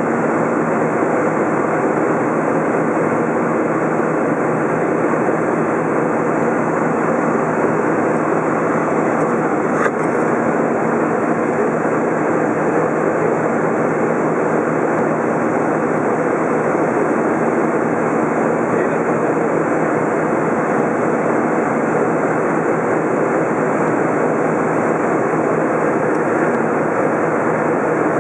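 Steady cabin noise inside an Airbus A320 climbing after takeoff, heard from a window seat over the wing: jet engines and air rushing past the fuselage. There is one faint click about ten seconds in.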